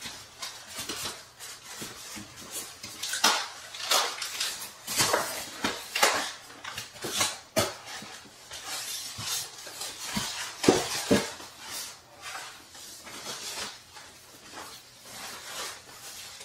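Unpacking noises: styrofoam packing blocks scraping and squeaking against cardboard and a plastic bag crinkling as a turntable is worked out of its box, in a string of irregular scrapes and knocks.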